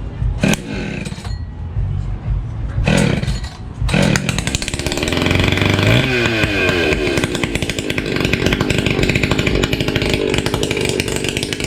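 A tuned, ported Echo chainsaw being pull-started. It fires briefly a few times, catches about four seconds in, revs up and keeps running at high revs. This saw is hard to start because it has been tuned and modified beyond stock.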